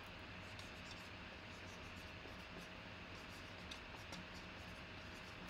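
Faint room tone: a steady low hiss with a thin constant hum, and a few soft scattered clicks.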